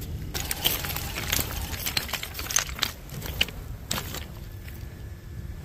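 Loose flat beach stones clicking and clattering against each other in a quick, irregular run of sharp clicks over a steady low rumble. The clicks stop about four seconds in, leaving a faint steady hum.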